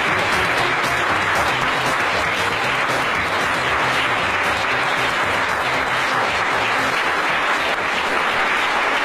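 Theatre audience applauding steadily, a dense even clapping, with music playing underneath that fades about two-thirds of the way through.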